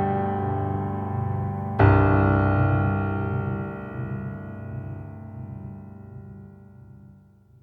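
Background music on a keyboard: a sustained chord, then a new chord struck about two seconds in that slowly fades away to nothing near the end.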